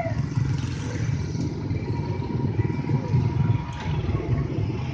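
Dense traffic of many motorcycles crossing at low speed: small engines running and pulling away together in a steady, fluctuating rumble.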